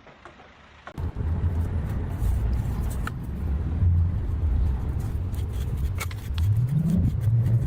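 A vehicle or machine engine running, starting after about a second of near quiet, with scattered clicks and knocks over it; near the end it revs up and holds at a slightly higher pitch.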